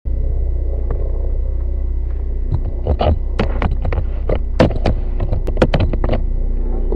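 A steady low rumble with a faint hum runs throughout. A run of sharp knocks and clicks, from about two and a half to six seconds in, is handling noise on the webcam's microphone as the person next to it moves away.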